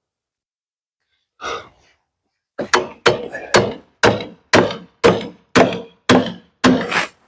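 A hammer driving wedges into the saw cut of a log, about ten solid knocks at two a second. The wedges open the cut where the sawmill's band blade was binding, pinched between the two pieces of wood.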